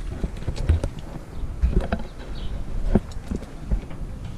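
Caulking gun clicking a few times as its trigger is squeezed to push sealant over the nail heads in PVC trim, sealing them against water, over a low rumble.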